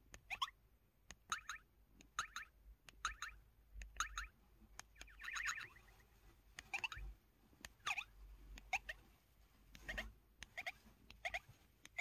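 Samsung Anycall SPH-S3900 slider phone playing its 'Raindrops' button sound: a short water-drop plip at each keypress, about one a second, with the faint click of the keys themselves. About five seconds in comes one longer sound of several tones together.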